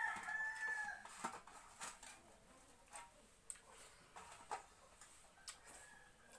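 A rooster crows once, a held call that ends about a second in. After it come scattered light clicks and taps of someone eating rice by hand from a steel plate.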